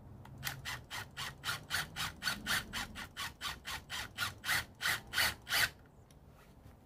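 Two cordless impact drivers, a Milwaukee M18 Gen 3 and a Ryobi PBLID02 brushless, hammering lag bolts into stacked lumber at the same time. The hammering rattle pulses about four times a second and stops suddenly about five and a half seconds in.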